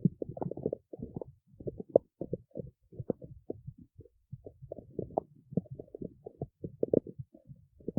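A human stomach growling and gurgling: a fast, irregular run of bubbly pops and low rumbles, easing briefly about four seconds in before picking up again.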